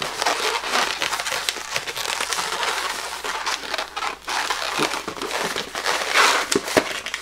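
Inflated latex twisting balloon being handled and twisted by hand, its skin rubbing and squeaking against the fingers as bubbles are twisted in, with many short squeaks and crackles, loudest about six seconds in.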